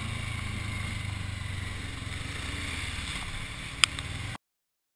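Motorcycle engine running steadily at low, even revs over a steady hiss. A single sharp click comes near the end, and the sound then cuts off suddenly.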